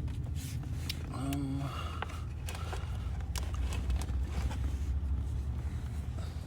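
Scattered light clicks and taps of hands working on wiring and fittings, over a steady low rumble. A short murmured voice sound comes about a second in.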